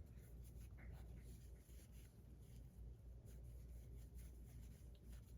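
Faint soft rubbing of a cloth wiping down a fidget spinner, in short repeated strokes over a low room hum.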